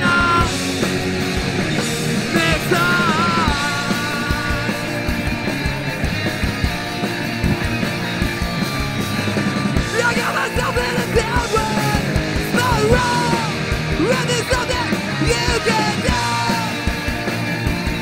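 Live punk rock band playing, with a steady drum beat under guitars and yelled vocals.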